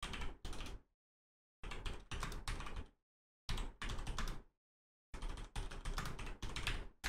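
Typing on a computer keyboard: rapid keystrokes in four short runs, with silent gaps between them.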